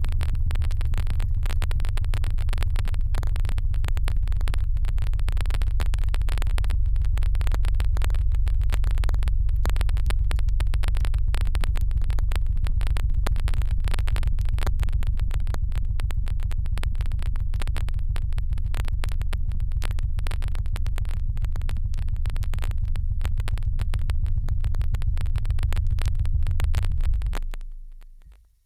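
A pump pressurizing a water-filled pressure chamber runs steadily with a fast, rattling pulse and a heavy low rumble, then fades out about a second before the end.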